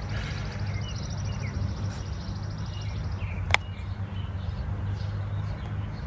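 Steady low hum throughout, with a high, fast trill for about the first three seconds and one sharp click a little past halfway.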